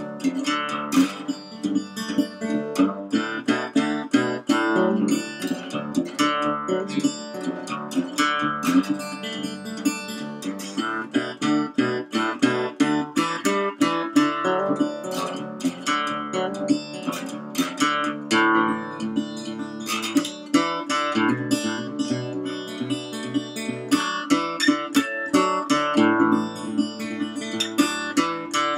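Blues instrumental on a wooden-bodied Dobro resonator guitar, fingerpicked, with a glass slide on the fretting hand: a steady stream of plucked, ringing notes with no singing.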